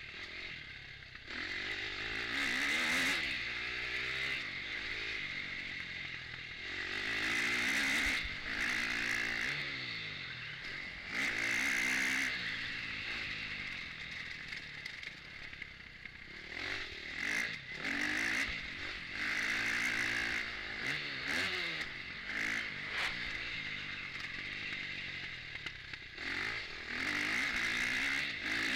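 KTM 250 four-stroke motocross bike engine heard from on board, revving hard and climbing in pitch through the gears on the straights, then dropping back as the throttle closes for corners. This happens several times over.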